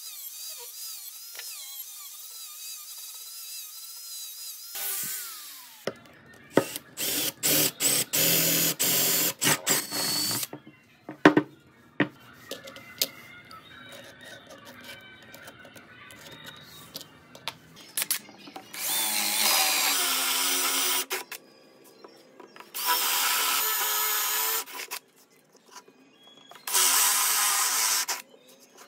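Power tools working wood in short bursts, with clicks and knocks between. In the later part a cordless drill bores into a hardwood disc in runs of about two seconds, with pauses between them.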